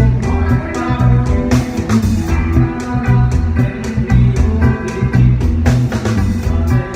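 Instrumental Isan music: a phin, the Isan plucked lute, playing a solo melody over bass and a steady drum beat.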